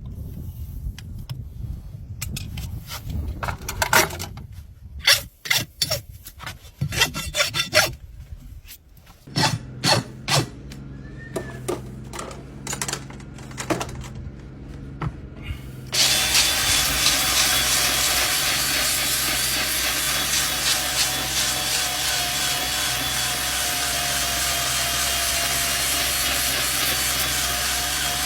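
Horse hoof being worked with tools: irregular scraping strokes for the first half, then about halfway through a power tool runs steadily against the hoof until the end.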